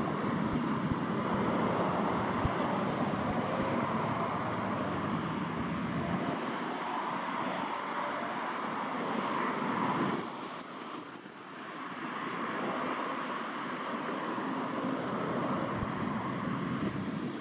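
Jet aircraft engine noise, a steady rushing sound that dips briefly about ten seconds in and then builds again.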